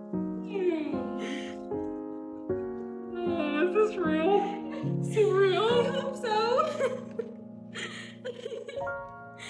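Background piano music, slow chords changing every second or so, with a voice wavering up and down over it, loudest in the middle.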